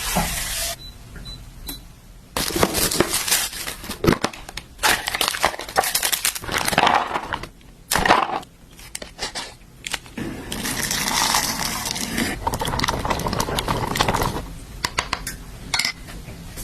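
Kitchen cooking and handling noises: utensils and dishes clinking and knocking, with several stretches of hissing.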